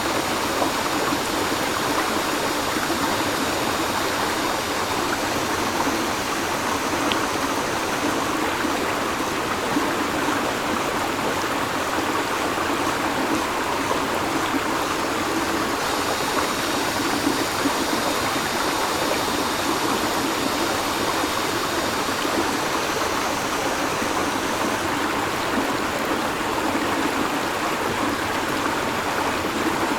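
River water flowing steadily, with a faint, high, steady drone of cicadas behind it.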